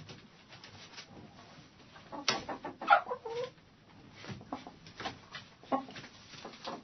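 Hens clucking in a hen house: scattered short clucks, with a louder run of calls about two seconds in that ends in one longer call falling in pitch.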